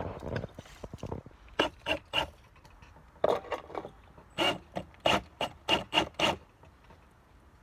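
Wire being pulled through a drill-driven wire stripping machine: a string of short scraping rasps, bunched quickly together in the middle.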